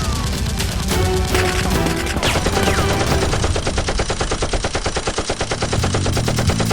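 Rapid automatic gunfire over background music, the fire becoming a dense, even rattle about two seconds in.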